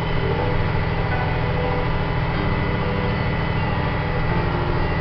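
An old Mack truck's engine running steadily on the move, heard from inside the cab along with road noise.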